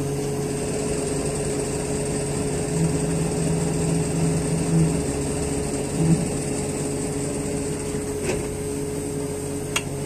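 Heavy mining equipment's engine running steadily, a constant hum with a slightly stronger low tone between about three and five seconds in.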